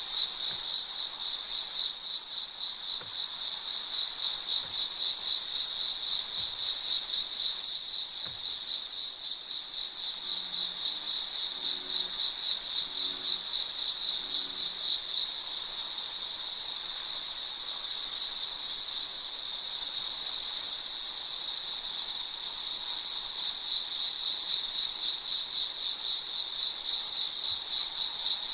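Autumn crickets chirping in a dense, steady chorus. A second, higher trill comes and goes over it a few times.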